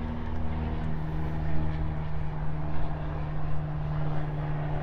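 A steady, low-pitched engine drone.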